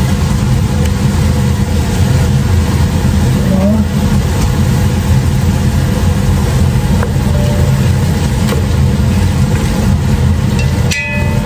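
Steady low motor hum, with a couple of light clinks against the pot near the end as the pork and onions are stirred.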